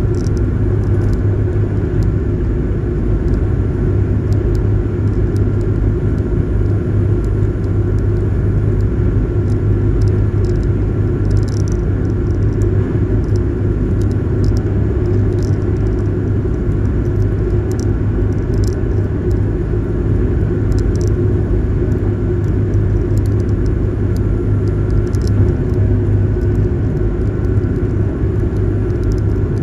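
Ferry's engines droning steadily with a deep hum, over the rush of water past the hull and brief hisses of spray or wind.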